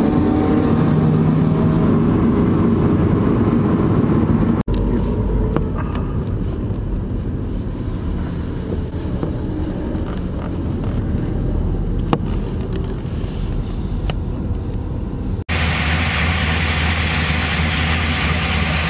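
Car sounds in three abrupt cuts: a car driving on a road, then engine noise across a car-meet lot where one car is making tyre smoke, and in the last few seconds a Chevrolet Chevelle SS's V8 idling steadily.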